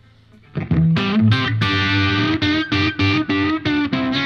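Overdriven electric guitar on the bridge pickup, played through an Origin Effects Revival Drive pedal into a Diezel Schmidt amp. After a quiet first half second it plays a run of distorted picked notes and chords, broken by several short choppy stops.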